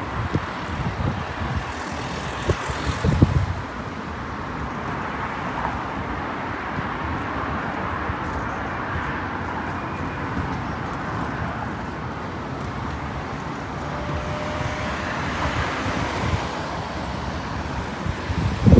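Steady road traffic noise from cars on the road below. Wind buffets the microphone in the first few seconds.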